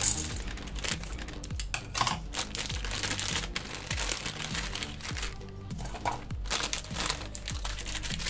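Foil-lined plastic instant-noodle packet crinkling as it is handled and squeezed, with many short crackles, over background music.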